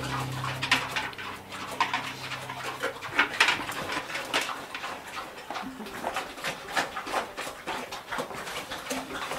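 A pig eating raw pumpkin chunks from a trough, with irregular wet crunching and smacking as it chews.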